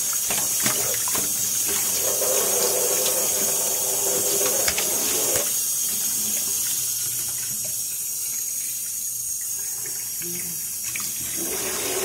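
Tap water running into a stainless steel kitchen sink as a raw octopus is washed under it by hand. The splashing thins about five and a half seconds in and fills out again near the end.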